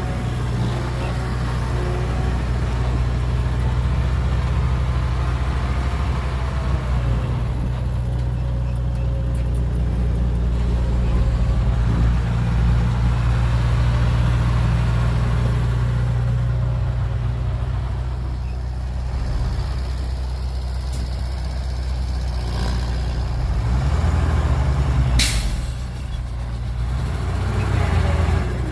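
Heavy diesel earthmoving machinery running steadily, with a deep engine drone and some rise and fall in pitch. A short sharp hiss comes near the end.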